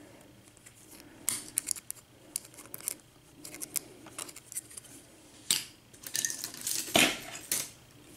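Small metal clicks, taps and scrapes of a tool working the retaining clip off a Serraller half euro cylinder lock, with two sharper metallic ticks past the middle.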